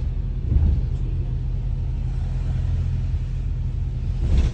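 Steady low rumble of a bus's engine and running gear heard from inside the passenger cabin, swelling briefly about half a second in.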